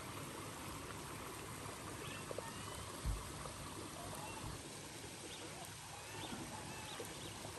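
Steady outdoor rushing noise with a few faint short chirps, and a single low thump about three seconds in.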